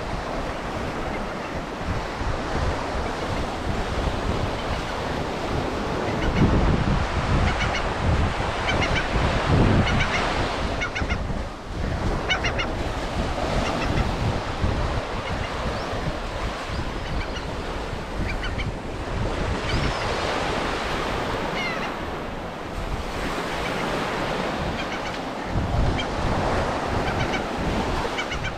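Ocean surf breaking and washing up the beach, with wind buffeting the microphone. Seabirds call in short, repeated notes at several points.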